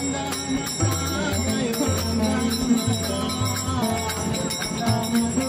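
Music with a bass line that changes note about every half second under a sustained melody.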